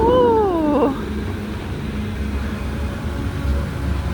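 A short pitched vocal call that rises slightly and then slides down over about a second, over a steady low rumble that continues after it.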